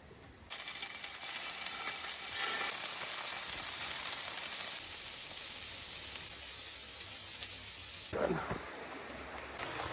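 Heavy rain falling, a dense steady hiss that starts suddenly about half a second in, then steps down to a softer level about five seconds in and again near eight seconds.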